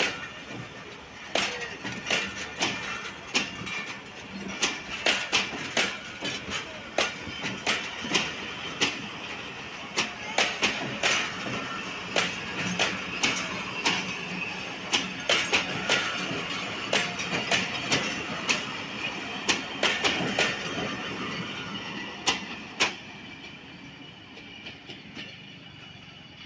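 Passenger train coaches rolling past, their wheels clacking over rail joints in irregular pairs and clusters over a steady rumble of running gear. The clacks thin out and the sound fades near the end as the last coach moves away.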